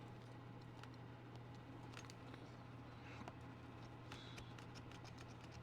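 Near silence: a steady low hum with a few faint, scattered clicks of small diecast model parts and pliers being handled.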